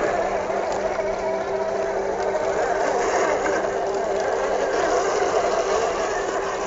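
Electric motor and gearbox of a small-scale RC off-road truck running steadily, an even whirring hum held at one pitch.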